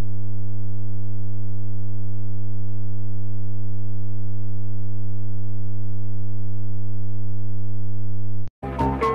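Loud, steady, low-pitched buzzing alert tone of a mock emergency alert broadcast, unbroken until it cuts off suddenly about a second before the end. Music starts right after it.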